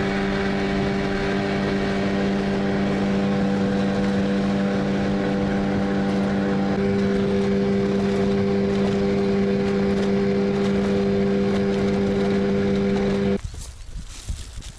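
Small outboard motor on an inflatable PVC boat running at a steady cruising speed, a constant hum that holds one pitch throughout. It cuts off abruptly about a second before the end.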